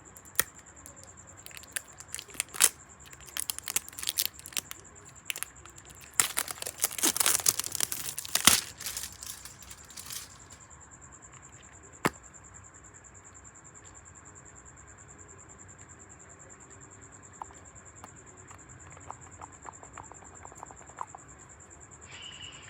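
Product packaging being unwrapped by hand: crinkling, tearing and clicking, loudest about six to nine seconds in. After that it goes mostly quiet except for one sharp click and a few light taps, over a faint steady high whine.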